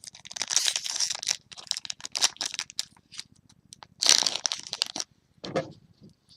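Foil wrapper of a trading-card pack crinkling and rustling in hand, in quick irregular crackles, with a louder burst about four seconds in.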